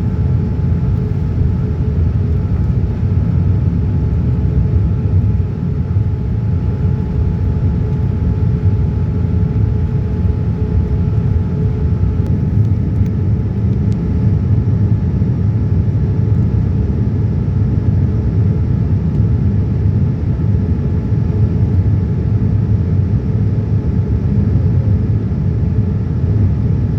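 Boeing 787-9 airliner cabin noise: a loud, steady low rumble of engines and rushing air, with a faint steady hum over it.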